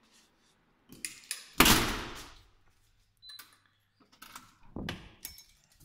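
A heavy door bangs shut about one and a half seconds in, after a few clicks. It is followed by a short electronic beep from the door's keypad lock and more clicks and knocks of the lever handle and latch.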